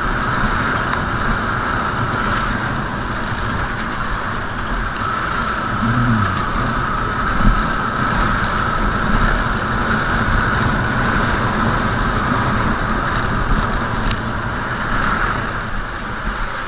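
A vehicle being driven: steady engine and road noise.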